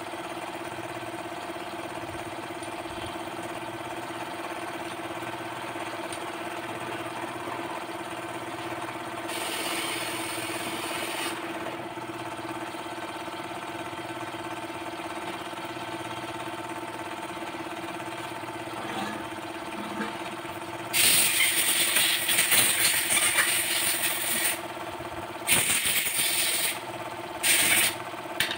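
A steady mechanical hum runs underneath, broken by loud bursts of hissing: a short one about a third of the way in, a long one of about three and a half seconds past the two-thirds mark, and two shorter ones near the end.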